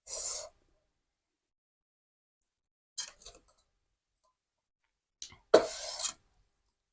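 Close-miked eating sounds: short bursts of chewing with mouth clicks, the loudest near the end, separated by silence.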